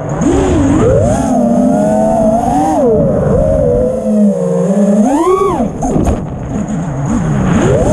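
Brushless motors and propellers of an FPV freestyle quadcopter whining as the throttle is worked, the pitch gliding up and down, with a quick surge and drop about five seconds in.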